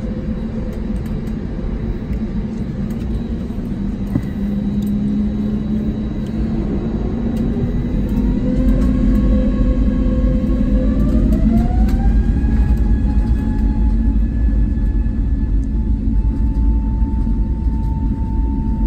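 An airliner's jet engines heard from inside the cabin, spooling up to takeoff thrust: a whine of several tones rises from about seven seconds in and levels off some five seconds later, over a steady low rumble that grows louder as the takeoff roll begins.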